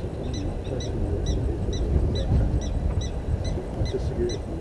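A bird calling over and over in a fast, even series of short, high notes, about four a second, over a steady low rumble.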